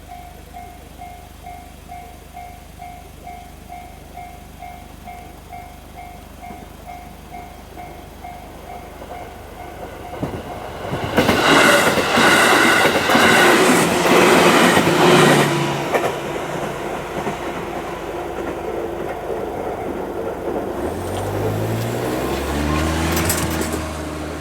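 Japanese level-crossing warning bell dinging steadily at about two strokes a second. About ten seconds in, a JR Ryomo Line electric train passes over the crossing, loud for about five seconds with wheels clattering on the rails, then fades to a lower rumble. Near the end a motor rises in pitch twice.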